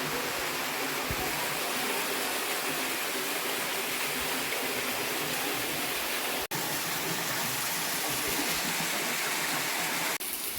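Waterfall rushing with a steady, dense noise of falling water. It cuts out for an instant about six and a half seconds in.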